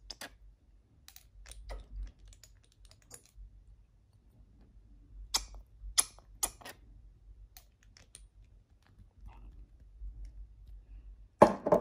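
Scattered light clicks and taps of a metal spatula against a stainless steel mixing bowl as thick cream is stirred, at uneven intervals.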